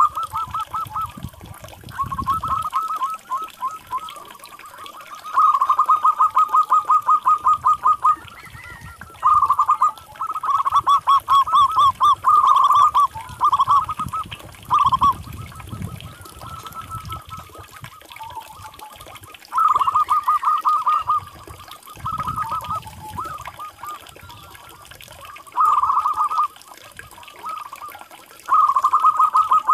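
Zebra dove (perkutut) cooing: repeated phrases of rapid, pulsed cooing notes, each phrase one to three seconds long with short pauses between. This is the long call of a local perkutut.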